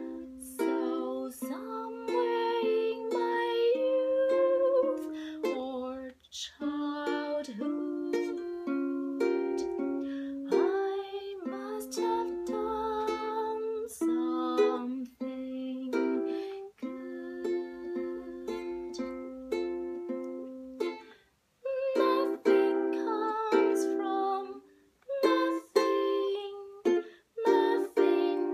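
A woman singing a slow song to her own strummed ukulele chords, with two short pauses in the playing late on.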